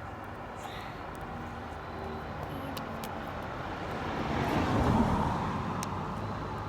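A vehicle passing: a steady rush of noise that swells to a peak about five seconds in and then eases off, with a few faint clicks.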